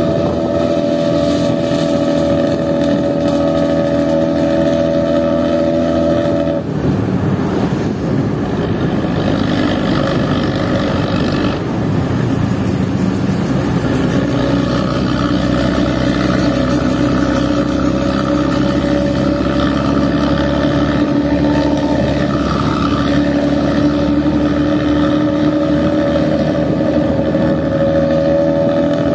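Diesel bus engine running through a racing exhaust. Its steady note breaks off about six seconds in and turns rougher for several seconds, then settles into a new steady note.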